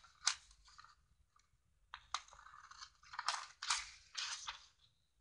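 Scissors snipping through a sheet of paper, with the sheet rustling as it is shifted and turned: short crisp snips, one near the start and several more from about two seconds in.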